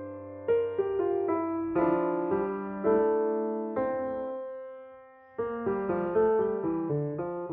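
1966 Mason & Hamlin Model A grand piano played solo in a slow, lyrical passage: chords struck and left to ring, one fading almost away about five seconds in, before a new phrase of quicker notes begins.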